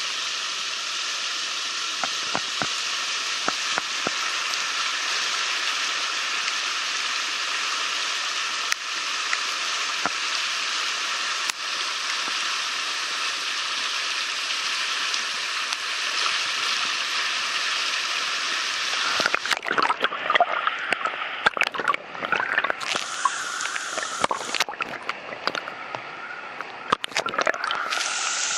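Swollen creek in flood, fast brown water rushing and churning around tree trunks with a steady rushing noise. About two-thirds of the way through the sound turns uneven and choppy, with louder bumps and splashes.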